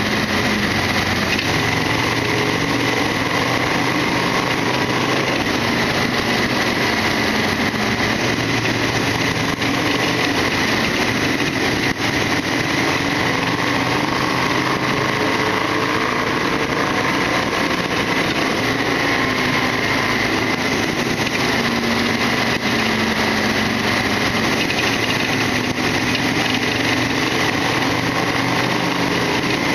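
Harley-Davidson XL1200R Sportster's air-cooled 1200 cc V-twin running steadily on the move, its note rising and falling gently with engine speed.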